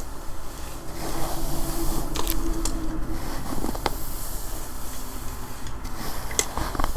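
Hairbrush drawn through hair: a steady, soft rustling hiss that wavers in level, quieter than one might expect because the hair was already brushed smooth. A few sharp clicks come from a pet crunching dry food.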